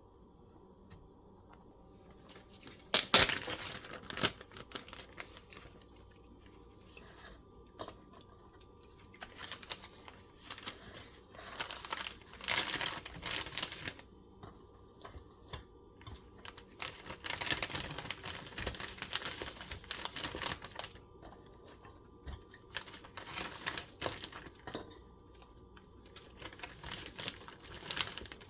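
Irregular crinkling and tearing noises in short bursts, with a sharp knock about three seconds in.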